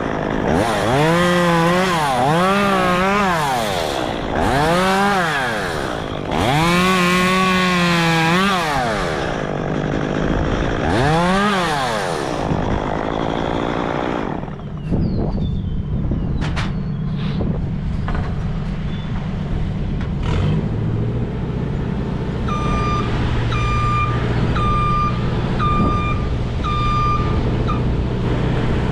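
Chainsaw revving up and down in a series of short surges for the first dozen seconds. Then a machine's engine runs steadily, and about two-thirds of the way through its reversing alarm starts beeping at a steady pace.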